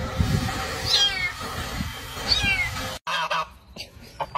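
A cat gives two high-pitched meows that fall in pitch, about a second and a half apart, over a low rumbling noise. About three seconds in the sound cuts, and a greylag goose honks briefly.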